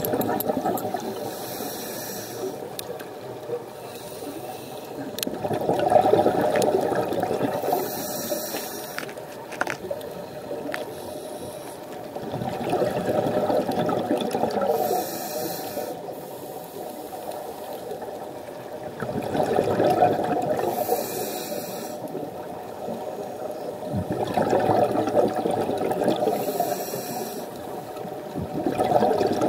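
Scuba diver breathing through a regulator, heard underwater: a short hiss on each inhale followed by a louder rush of exhaled bubbles, about every six seconds, five breaths in all.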